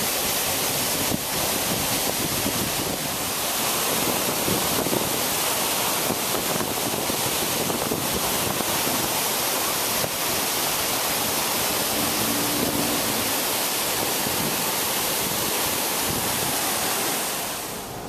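A tall waterfall pouring down a cliff, a loud steady rush of falling water, swollen after days of rain. The rush falls away near the end.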